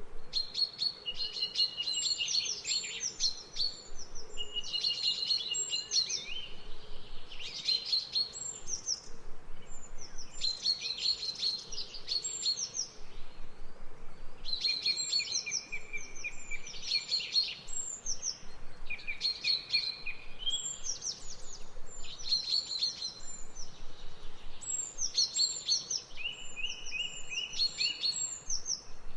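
Songbirds singing: phrases of quick chirps and short held whistles recur every two to three seconds, with more than one bird overlapping.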